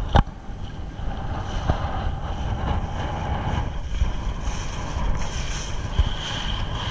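An inflatable dinghy under way, its outboard motor running steadily with a whine, and wind buffeting the microphone over the hiss of water along the hull. A single sharp knock sounds just after the start.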